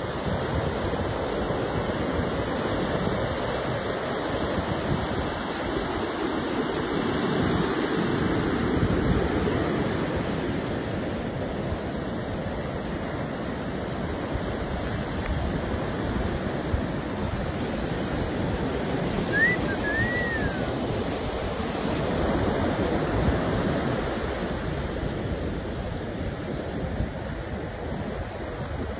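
Ocean surf washing onto a sandy beach, a steady rush that swells and ebbs, with some wind on the microphone. A brief high two-note chirp cuts in about two-thirds of the way through.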